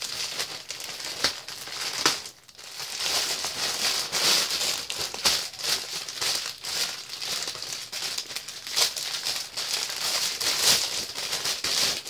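Plastic courier mailer and clear plastic bag crinkling and crackling as they are handled and opened by hand, with many sharp crackles and a brief lull about two seconds in.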